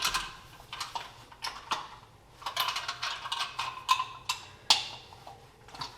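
Irregular light clicks, taps and rubbing as electrical cable is handled and worked through the wall into an electrical box.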